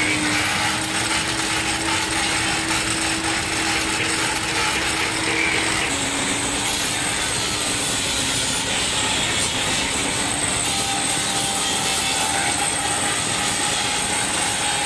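Metalworking factory machinery running steadily, a dense mechanical clatter with a held whine that drops slightly in pitch about six seconds in.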